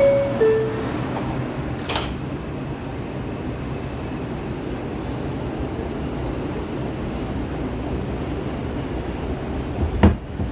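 Two-note descending door chime of an R142 subway car, then a knock about two seconds in as the doors shut. A steady rumble and ventilation hum inside the car follows as the train moves off, with a few sharp knocks from the wheels near the end.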